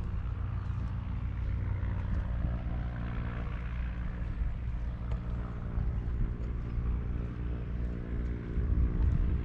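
A steady, low engine drone with an even hum that holds unchanged throughout.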